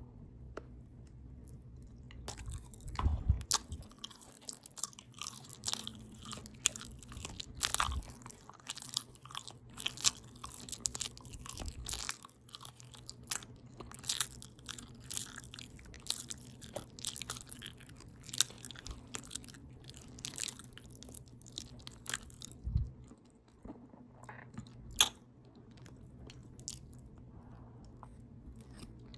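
Open-mouth chewing of a potato taco bowl of potatoes, ground beef, cheese and lettuce: a dense run of quick mouth clicks for most of the time, thinning out near the end, with one sharp loud click late on.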